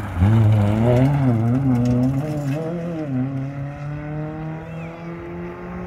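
Small hatchback rally car's engine revving hard as it slides past on a gravel stage, its pitch jumping up and down with the throttle for the first few seconds. Then it climbs in one long rising note as the car accelerates away, growing fainter.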